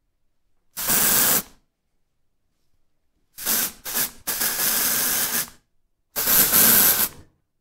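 Hissing sound effects for an animated logo reveal: five short bursts of steady hiss with silent gaps between them. Three of the bursts come in quick succession through the middle, and the last ends near the close.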